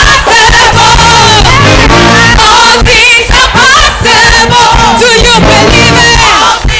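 Live gospel praise music: a woman sings lead into a microphone over a full band, with other voices joining in.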